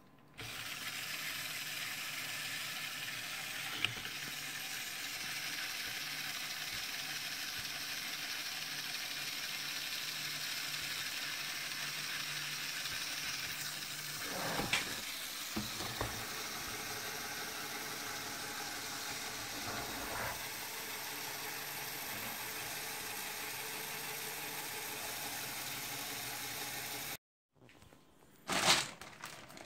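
LEGO 9686 bulldozer model's small electric motor running steadily, driving its plastic reduction gears with a whirring gear rattle and a few knocks partway through. It stops suddenly near the end, and a few clicks and knocks follow.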